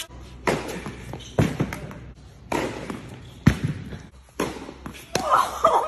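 Tennis balls struck with racquets and bouncing on the court, sharp pops about once a second that echo around a large indoor tennis hall.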